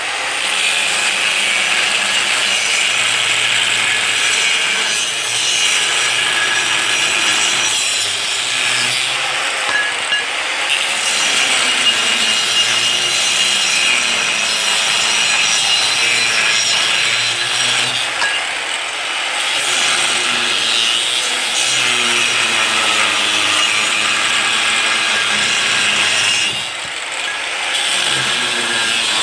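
Handheld power tool, likely an angle grinder with a cut-off wheel, cutting through steel in a continuous loud grind that eases briefly three times, about every nine seconds.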